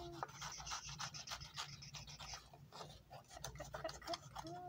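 Scissors cutting through construction paper: a quick run of snips with the paper rustling and scraping.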